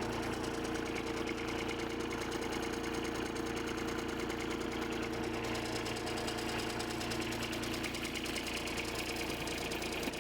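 Small compact loader's engine idling steadily.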